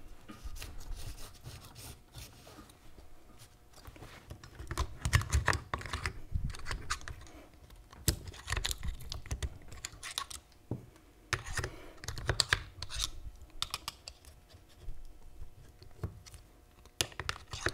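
Small metal parts of a Hurst four-speed shifter being handled and worked into the shifter body by hand: irregular light clicks, taps and scrapes of metal on metal, with occasional dull knocks on the bench.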